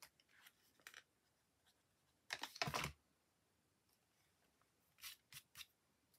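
Paper craft pieces being handled and pressed onto a card: a short rustle a little over two seconds in, then a few small rustles and clicks near the end, with near silence between.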